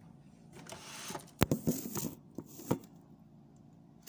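Rustling handling noise on a kitchen counter, then a handful of sharp knocks and clatters about a second and a half in, the first the loudest.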